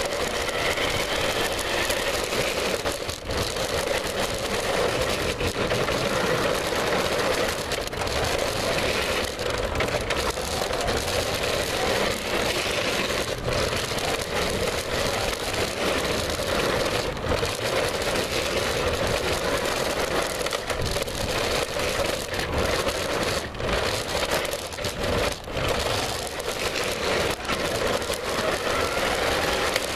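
Remote-control car driving, heard from a camera mounted on it: its motor runs steadily under a constant rattling and scraping, with frequent sharp knocks as the car jolts along.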